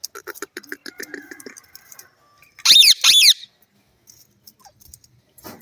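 A parrot chattering in a quick run of short notes for about two seconds, then giving two loud, shrill screeches in quick succession, each rising and falling in pitch.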